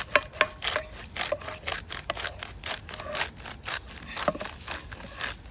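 Wooden spoon stirring and scraping scrambled eggs in a non-stick frying pan over a wood fire, with seasoning shaken from a bottle into the pan. It makes a quick run of clicks and scrapes, about five a second, over a light sizzle.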